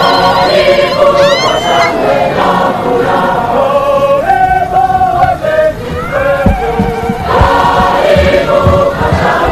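A choir of National Youth Service recruits singing together in chorus as they march, with several voices holding long notes.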